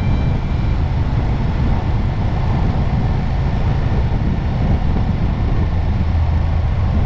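Ducati Monster 1200S motorcycle cruising at expressway speed: its L-twin engine running steadily under a rush of wind noise.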